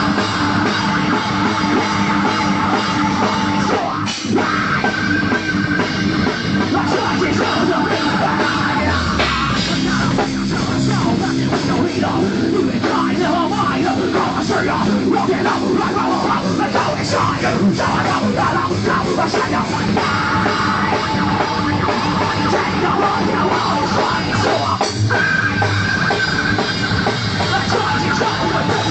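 Rock band playing live: electric guitar and bass over a drum kit, loud and without a break.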